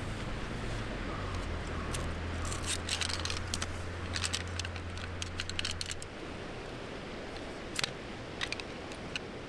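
A run of sharp clicks and light clinks of small hard objects, clustered in the middle, with a few more single clicks later. Under them a low steady hum stops about six seconds in.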